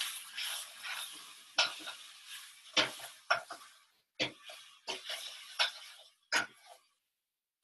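Metal tongs knocking and scraping against a saucepan as food is stirred on the stove, with about seven sharp clinks at irregular intervals over a hissing sizzle.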